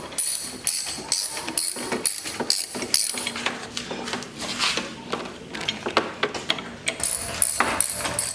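Background music with a steady tambourine-like percussion beat, about two to three strokes a second.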